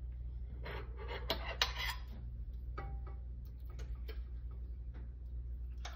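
Corned beef hash being scraped out of a metal can: a few short scraping sounds in the first two seconds, then a few faint clicks, over a steady low hum.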